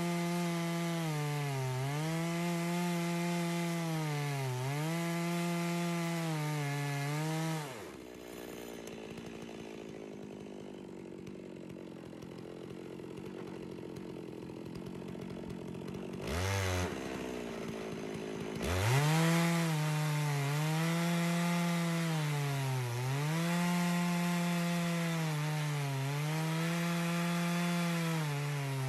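92cc Farmertec G660 two-stroke chainsaw on a chainsaw mill, ripping lengthwise through a thick cherry slab at full throttle, its pitch dipping under load every couple of seconds. About a quarter of the way in the engine note drops off and it goes much quieter for about ten seconds, with a short blip of the engine, then the saw revs back up and carries on cutting.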